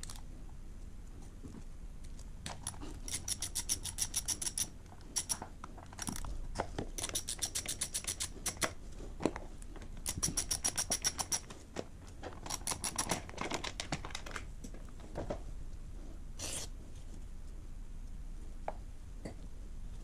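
Ratchet socket wrench clicking in several quick runs as it turns the bolts of a motorcycle's front sprocket cover, with a few single metal knocks between the runs.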